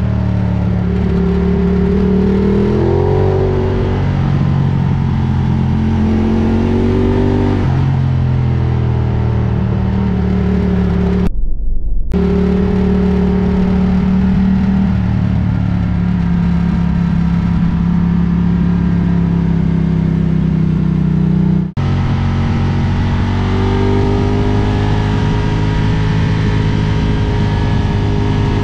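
Ducati Diavel motorcycle engine running under way, its pitch rising and settling several times as the throttle opens and closes. The sound breaks briefly about eleven seconds in and again about twenty-two seconds in.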